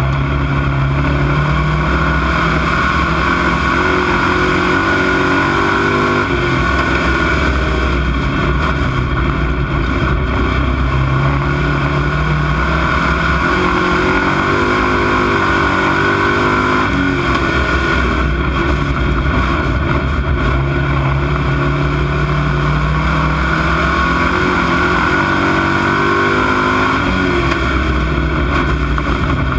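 Dirt-track stock car engine heard from inside the cockpit at racing speed, loud and continuous over heavy rumble. Its pitch climbs and falls several times as the car accelerates and backs off around the oval.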